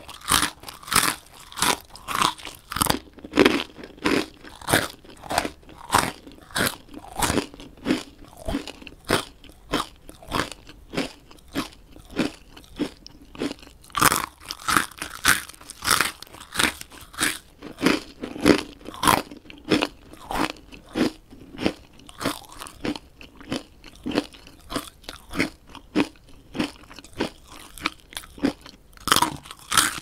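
Someone chewing pilipit, a crispy fried bread snack, in a steady run of sharp crunches at about two to three a second. Some crunches are louder than the rest, among them a cluster about halfway through.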